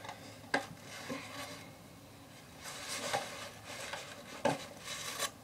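Hard plastic parts of a small RC truck being handled: about five sharp clicks and knocks spread out, with light rattling and rustling between them.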